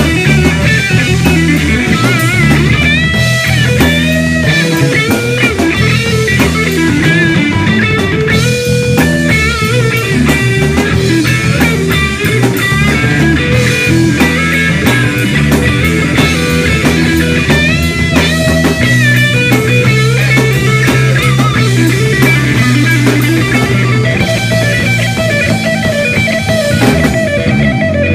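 Live rock band playing loud: electric guitar with bent, gliding lead notes over drums and steady low notes.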